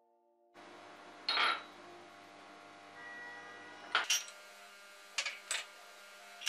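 Kitchenware being handled and set down: a clinking clatter about a second in, then several short clinks and taps.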